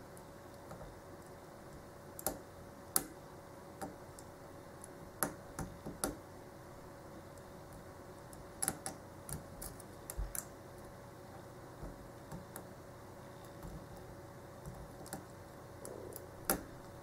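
Irregular small metallic clicks and ticks of a steel hook pick and tension wrench working the pins inside an Ace A527 padlock's keyway during single pin picking, with no pins setting yet.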